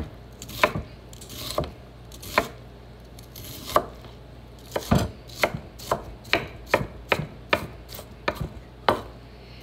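Kitchen knife cutting through an onion onto a wooden cutting board: a few spaced cuts, then quicker steady chopping from about halfway through, about two and a half cuts a second.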